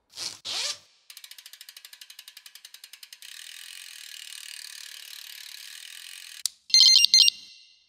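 Edited-in cartoon sound effects for a down jacket shrinking: two quick whooshes, about two seconds of rapid ratchet-like clicking, a steady hiss for about three seconds, then a sharp click and a short bright chiming jingle.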